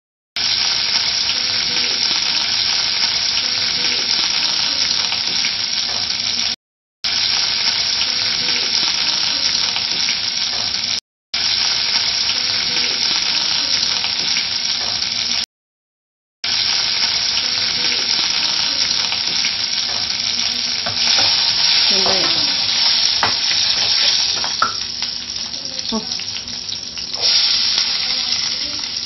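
Hot oil sizzling in a stainless-steel kadai as curry leaves and spices are tempered. The sizzle breaks off suddenly three times. Near the end, chopped onions are in the pan and being stirred, with a ladle scraping the steel.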